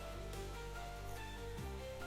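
Quiet background music of sustained notes, changing chord about one and a half seconds in.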